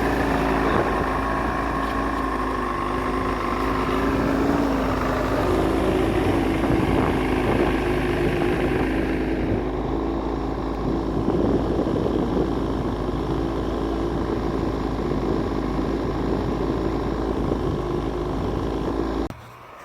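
Buran snowmobile's two-stroke engine running steadily. The sound turns duller about halfway through and cuts off suddenly near the end.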